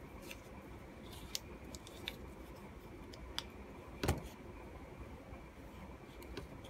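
Faint metallic clicks of a vintage H. Boker & Co. elephant toe sunfish two-blade pocketknife being handled, its blades folded and moved into place, with one louder click about four seconds in.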